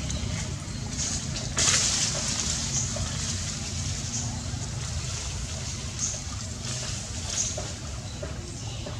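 Outdoor ambience: a steady low rumble with short hissing, rustling noises every second or so. The loudest comes about a second and a half in and lasts about half a second.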